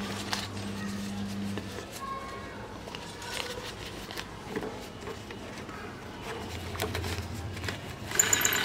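Crinkling and rustling of a folded paper banknote being unfolded and smoothed by hand, in scattered soft clicks. Near the end comes a short, louder burst with high tones as the note is pushed into the slot of the electronic toy money bank.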